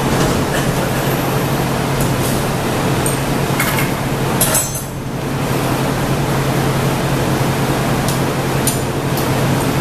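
Steady roar with a low hum from the glassblowing hot shop's fans and equipment. Over it come a few light clinks of steel hand tools on the glass goblet at the bench, the clearest about four and a half seconds in.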